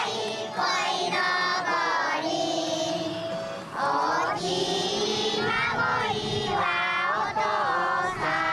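A group of young children singing a song together, with some long held notes.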